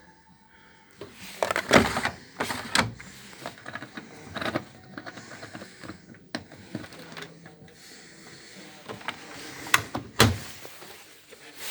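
Washing machine's porthole door being opened and handled: a series of sharp clicks and knocks, the loudest about ten seconds in.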